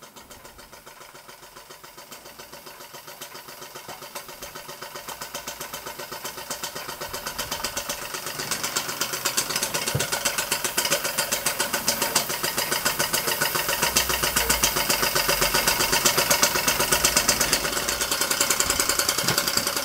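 Märklin Donkey Engine, a small live-steam model engine, running on steam with a fast, even chuffing beat of several strokes a second, growing steadily louder as it speeds up while driving a model band saw by a belt.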